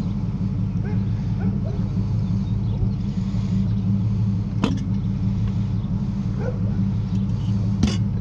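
Steady low rumble of a running vehicle, heard as from inside it, with two sharp knocks about four and a half and eight seconds in.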